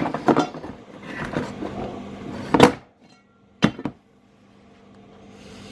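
Metal clanks and knocks of hand tools against engine parts during an engine teardown: several separate knocks, the loudest about two and a half seconds in, then two sharp clicks a second later.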